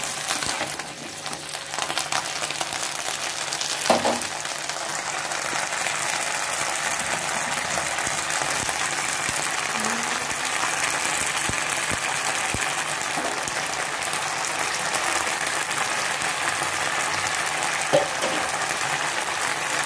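Whole ber (Indian jujube) fruits sizzling steadily in hot mustard oil in a non-stick kadhai, with a single spatula knock about four seconds in.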